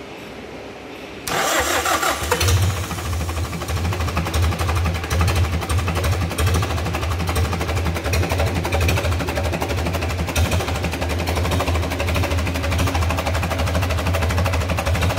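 Westerbeke 40 inboard marine diesel engine cranked by its electric starter and catching after about a second, then running steadily at idle.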